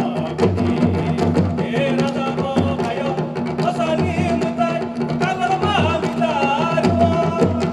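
Live traditional folk music for a dance: repeated low drum beats over a steady held drone, with a wavering, vibrato-laden melody line above.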